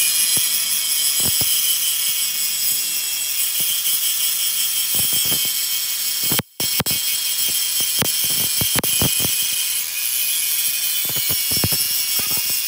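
AEG angle grinder with an abrasive disc grinding down a weld bead on steel: a steady high whine and hiss with frequent sharp scratchy clicks. The sound cuts out briefly about six and a half seconds in.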